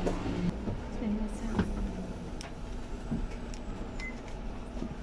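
Inside a city bus standing at a stop: a steady hum cuts off about half a second in. A low rumble then carries on, with scattered clicks and a short faint beep near the end.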